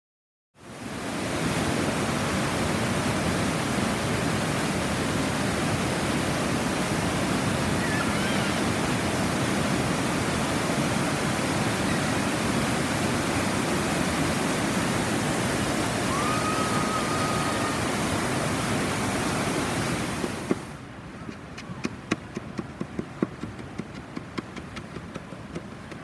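Water rushing over a partly ice-covered river waterfall, a loud steady rush. About three-quarters of the way through it drops to a much quieter hiss with scattered light clicks.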